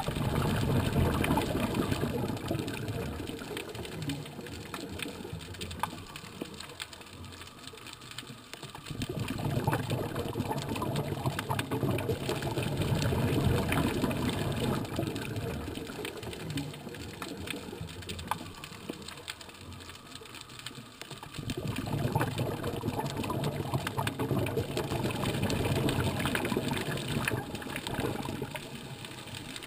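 Underwater: a scuba diver's exhaled bubbles from the regulator, rumbling and gurgling in three long surges a few seconds each, about ten seconds apart. A steady faint crackle runs underneath.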